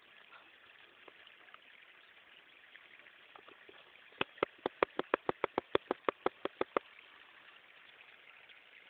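Water flowing steadily out of the ground, a soft continuous rushing hiss. About four seconds in, a quick run of about fifteen sharp clicks, some six a second, lasts two and a half seconds and is the loudest sound.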